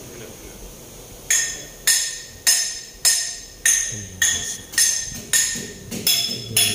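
Hammer striking a metal part again and again, about two blows a second, each ringing briefly, starting about a second in.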